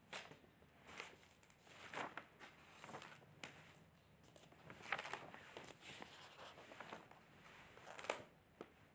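A quiet room with faint, irregular clicks and rustles, roughly one a second.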